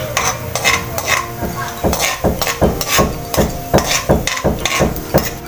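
Metal slotted spatula scraping and clinking against a wok while stirring annatto seeds in hot oil, about three strokes a second.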